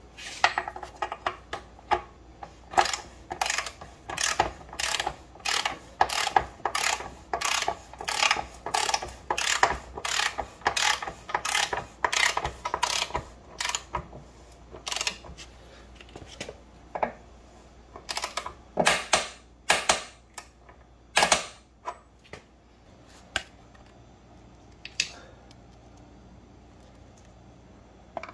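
Socket ratchet wrench clicking as the motorcycle's rear axle nut is tightened. A steady run of ratchet strokes comes about every half second, then a few slower, louder strokes two-thirds of the way through before it stops.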